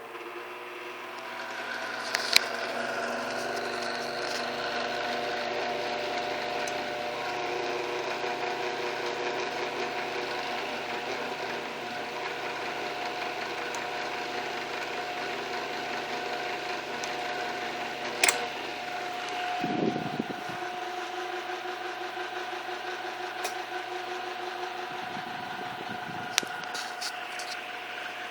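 1960s all-iron Walita electric fan running steadily: a motor hum and whir with several constant tones, a little noisy. A few sharp clicks, the loudest about two seconds in and another near eighteen seconds, and brief low rumbles around twenty and twenty-five seconds.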